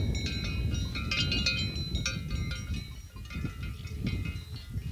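Several livestock bells on grazing animals clanking and ringing irregularly, many short overlapping metallic rings, over a low rumble of wind on the microphone.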